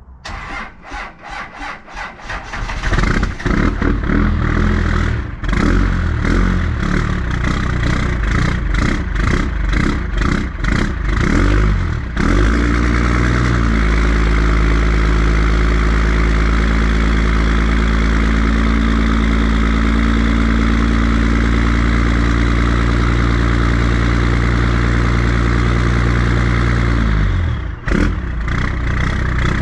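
The 12-valve Cummins 5.9-litre inline-six diesel in a 1998 Dodge Ram 3500 is cold-started in freezing weather on weak batteries. It cranks for a couple of seconds, catches and runs rough and uneven for about ten seconds, then settles into a steady diesel idle. This is a hard cold start: it barely started.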